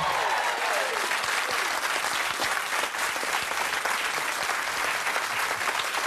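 Studio audience applauding steadily, a dense patter of many hands clapping at once.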